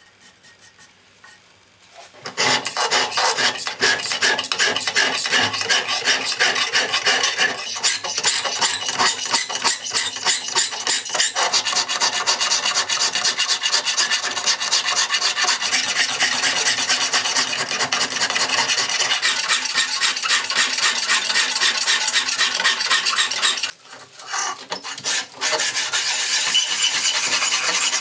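Hand file rasping across an O1 tool-steel knife blank held in a bevel-filing jig, in quick back-and-forth strokes that start about two seconds in. The strokes stop briefly near the end, then the scraping starts again.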